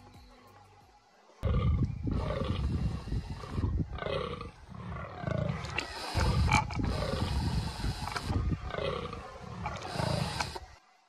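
Fallow buck groaning: a series of deep, croaking belches about one a second, starting suddenly about a second and a half in. This is the buck's rutting call, amplified from a faint recording.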